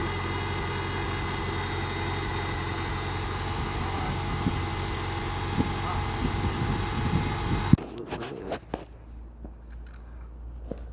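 A tractor's gasoline engine idling steadily. About three-quarters of the way through, the sound cuts off abruptly, leaving a low hum and a few light clicks and taps.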